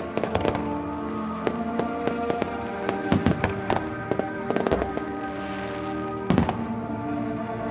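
Fireworks shells bursting in repeated sharp bangs, with clusters of louder reports about three seconds in and again just after six seconds. Music plays throughout.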